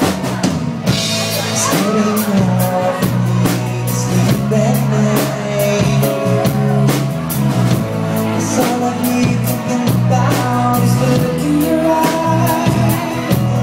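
Live band playing an instrumental stretch of a pop ballad: drum kit hits over held bass and chord notes.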